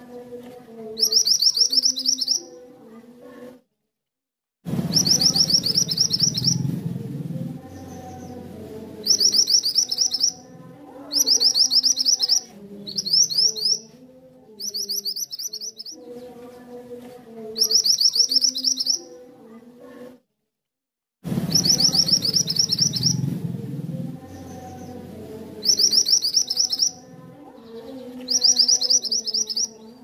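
Caged minivet (Indonesian 'mantenan' or 'kuniran') singing: about ten short, high, rapid trills, each around a second long, repeated every couple of seconds.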